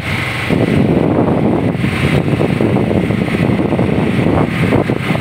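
Fishing boat's engine running steadily, with wind buffeting the microphone.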